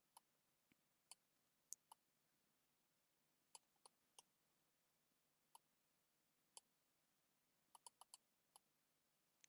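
Faint, sharp clicks from computer input while drawing, about fourteen of them at irregular intervals, with a quick run of four or five near the end; otherwise near silence.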